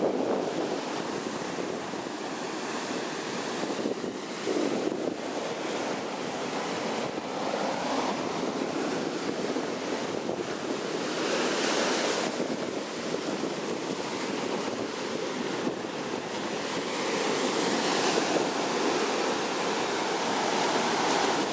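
Ocean surf breaking and washing up a sandy beach, with wind buffeting the microphone. The wash swells louder about halfway through and again near the end.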